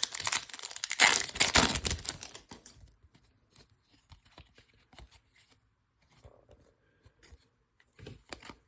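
A trading-card pack wrapper being torn open, crinkling for about two and a half seconds, then soft clicks and slides of cards being handled.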